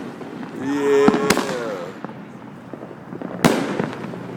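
Consumer fireworks going off: sharp bangs about a second in, two close together, and a louder one near the middle, with crackle in between. A man gives a drawn-out cheer over the first bangs.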